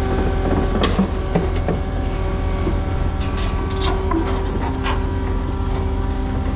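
Tracked skid steer's diesel engine running steadily, with scattered metal clanks and rattles from the machine about a second in and again around four to five seconds.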